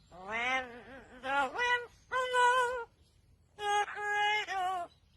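A bird giving several short, voice-like calls with gliding pitch, separated by brief pauses.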